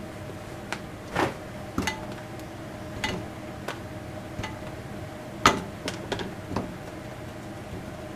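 Scattered light knocks and clicks, about a dozen irregular taps with the sharpest about five and a half seconds in, over a faint steady hum.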